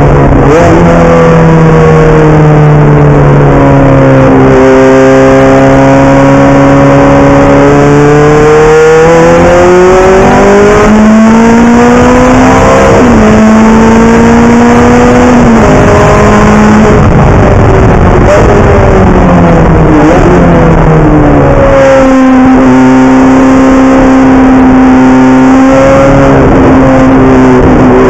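Ferrari F430 GT's V8 engine heard loud from inside the cabin at racing speed. Its pitch climbs under acceleration and falls off repeatedly as the car is driven through the gears, with a sharp drop in pitch about halfway through.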